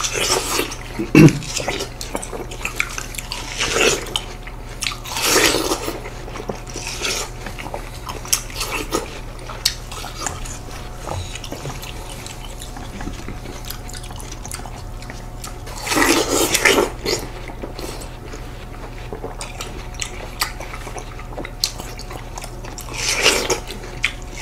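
Watermelon being bitten and chewed up close: wet, juicy mouth sounds come in scattered bursts with quieter stretches between, and a louder run about two-thirds of the way through and again near the end.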